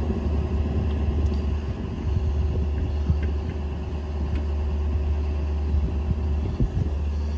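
The truck's 6.7-litre Power Stroke V8 diesel running steadily: a constant low drone with a steady hum above it. A few faint clicks come over the top.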